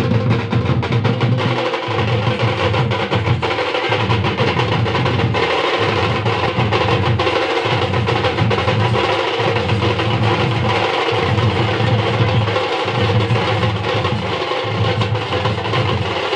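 Drum band of side drums played with sticks over large bass drums, beating a loud, fast, continuous rhythm. The deep bass-drum pattern repeats about every two seconds under a dense patter of stick strokes.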